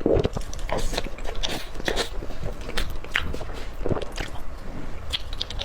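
Close-miked eating: someone biting and chewing crunchy food, with a run of irregular crisp crunches and crackles.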